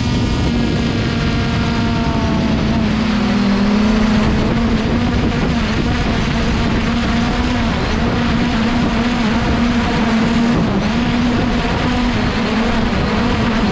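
Small drone's motors and propellers buzzing at a steady, slightly wavering pitch, over a loud rushing noise from the air flowing past.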